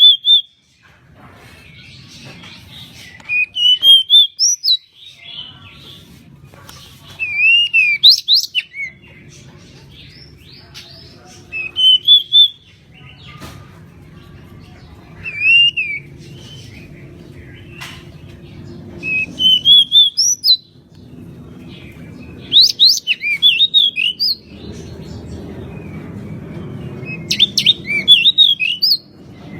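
Pied bushchat (decu) singing: about seven short, quick phrases of sweeping whistled notes, one roughly every four seconds, over a steady low background noise.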